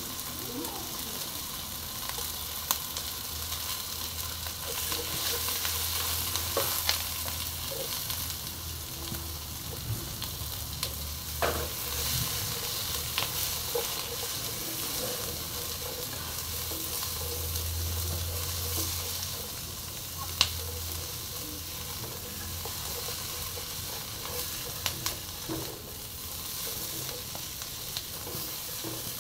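Chopped shallots sizzling in hot oil in a frying pan, stirred and scraped with a plastic slotted spatula. Now and then the spatula knocks sharply against the pan, a few times in all.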